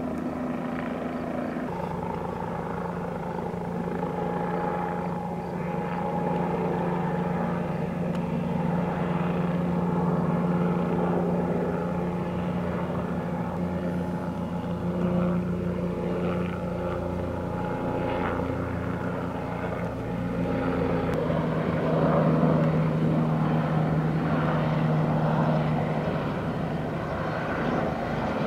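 Helicopters flying past, a steady rotor and engine drone with a few held tones. The tones shift in pitch about two seconds in and again around twenty-one seconds in, and the drone grows a little louder from there.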